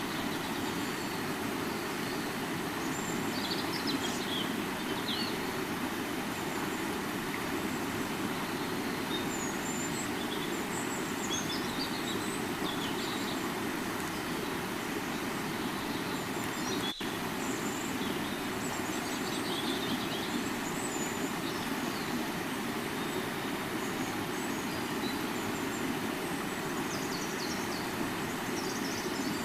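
River water flowing with a steady rushing sound, with birds chirping briefly now and then over it.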